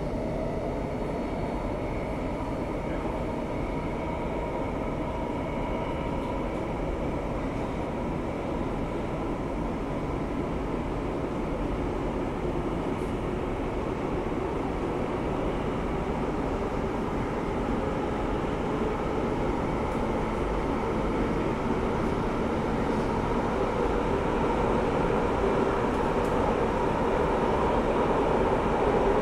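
Cabin noise of a Singapore Downtown Line MRT train under way: a steady running rumble with a faint whine, growing gradually louder toward the end.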